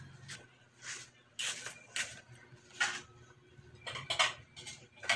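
Spatula scraping and clattering against a wok while stir-frying greens, in short separate strokes about once or twice a second.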